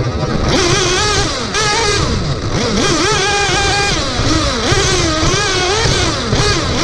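A 1/8-scale nitro RC buggy's glow engine heard from onboard, revving up and down with the throttle. Its pitch rises and falls every second or so, over a steady rumble of tyres on dirt.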